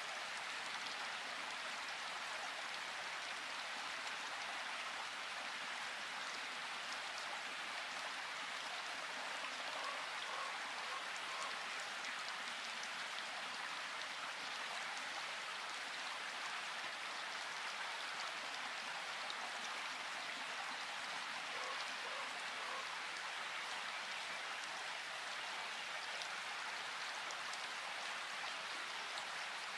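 Steady rain-like hiss, even throughout. A few faint, short, high notes sound twice, about a third of the way in and again about two-thirds through.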